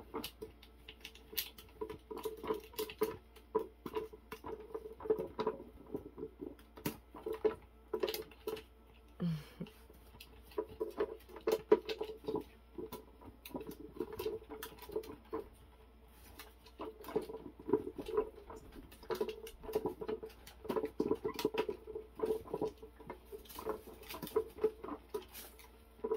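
A meerkat's claws scratching and tapping at a plastic dome cat toy as it digs into the holes: a steady run of irregular clicks, scrapes and patters, over a low hum that comes and goes.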